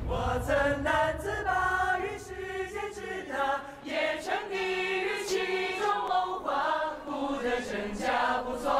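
A choir of young men and women singing a slow melody together in unison.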